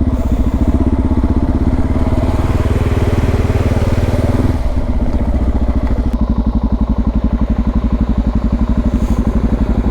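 Suzuki DR650's single-cylinder four-stroke engine running under way, a steady pulsing thump. The low end eases off about four and a half seconds in, as if the throttle is backed off.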